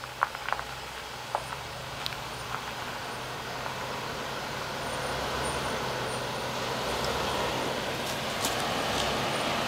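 Land Rover SUV crawling slowly up a rocky trail toward the listener: a steady low engine hum and tyre and gravel noise that grow steadily louder as it nears. A few sharp clicks sound in the first couple of seconds.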